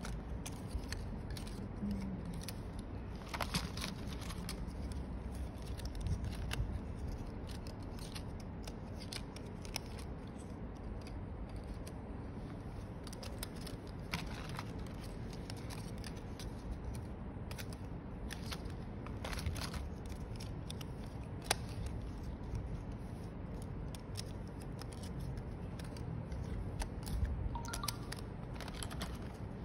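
Scattered light clicks and rattles of small plastic parts as a hand sorts through a plastic tub of phone repair parts, over a steady low background noise.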